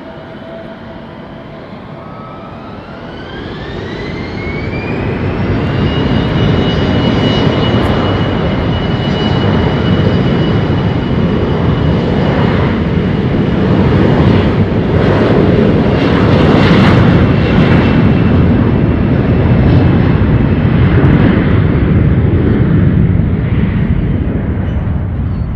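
Embraer E-Jet's twin turbofan engines spooling up to takeoff thrust, a whine rising in pitch over the first few seconds as the noise grows. They then hold a steady high whine over a loud rumble through the takeoff roll and lift-off.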